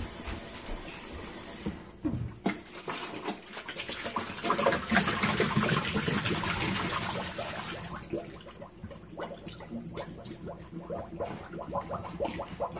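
Tap water pouring into a plastic jug in a stainless steel sink, which stops about two seconds in. Then water sloshes and splashes out as the jug is shaken and emptied into the sink, loudest in the middle, followed by scattered knocks and splashes as the plastic jug is handled in the sink.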